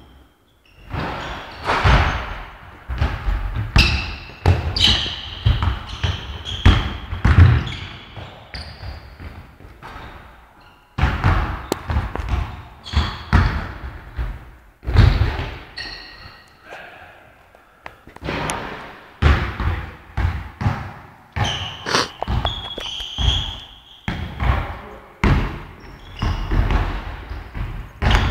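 Basketball bouncing hard on a court floor in quick runs of dribbles, with short high squeaks now and then.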